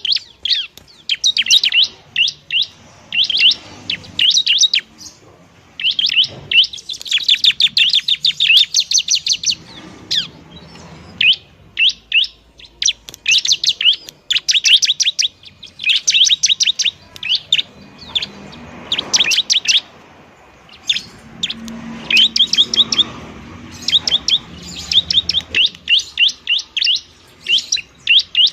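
Bar-winged prinia (ciblek) singing loudly: rapid trains of sharp, high chirping notes in bursts of a few seconds, broken by short pauses.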